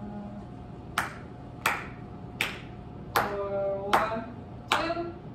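A steady beat of sharp clicks, about 80 a minute, counting in the brass section before it plays, with faint held tones near the middle.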